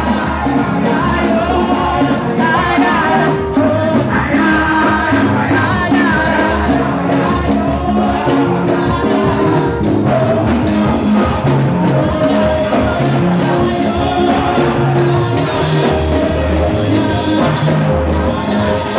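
Amplified gospel praise singing by a group of singers on microphones over loud music with a steady bass beat.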